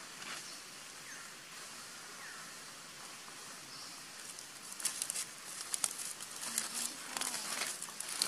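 Dry fallen leaves rustling and crackling under a long-tailed macaque's hands as it forages on the ground. The sound is a faint rustle at first, then turns into a run of sharp, crisp crackles about five seconds in.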